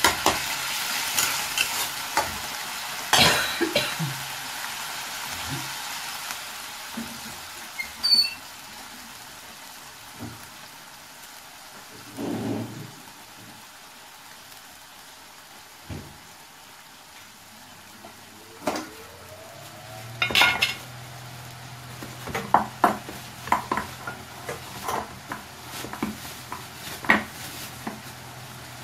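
Metal spatula stirring and scraping a pan of simmering bottle gourd curry, with a light sizzle over the first few seconds and a sharp knock of the spatula on the pan about three seconds in. Then scattered clicks and knocks of utensils, with a low steady hum coming in about two-thirds of the way through.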